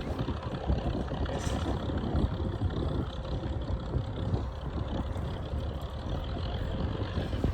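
Piston engines of Hawker Hurricanes running with a steady, rumbling drone.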